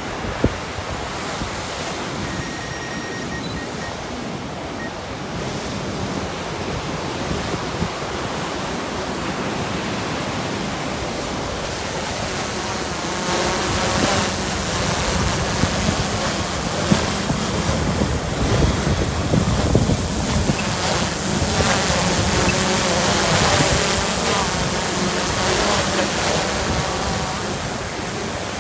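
Strong wind and surf, with wind buffeting the microphone. From about halfway through, the propeller hum of a returning DJI Mavic 2 quadcopter grows louder.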